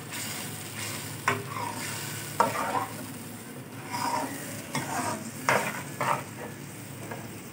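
A metal spoon stirring and scraping thick tomato masala frying in oil in an aluminium pot, with a steady sizzle. About six sharp scrapes and knocks of the spoon against the pot come every second or so.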